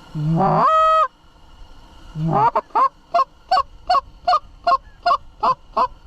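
A goose call blown by a hunter to sound like Canada geese: one long honk that breaks from a low note up to a held high note, then a fast run of about ten short clucks, roughly three a second.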